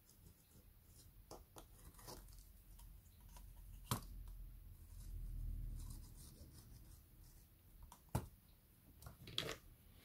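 Faint handling noise from a tablet repair: small scratches and clicks of tools and parts, with two sharper clicks about four and eight seconds in and a low rumble in the middle.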